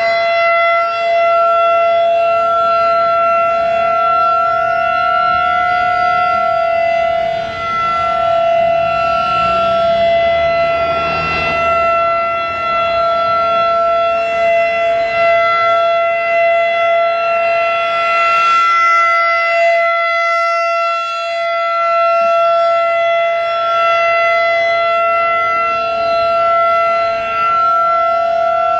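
Federal Signal 2001-DC electromechanical outdoor warning siren sounding the steady alert signal: one held tone that does not rise or fall in pitch, its loudness swelling and dipping slightly.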